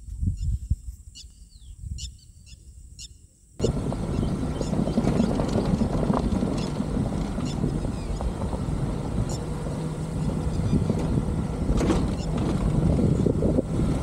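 Off-road vehicle driving, with wind buffeting the microphone. It starts abruptly a little over three seconds in, after a quieter low rumble with a few faint bird chirps.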